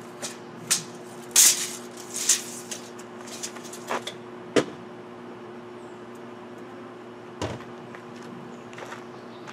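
A series of sharp knocks and clatters from tools or building materials being handled. They come thickest in the first half, with one more later on, over a steady low hum.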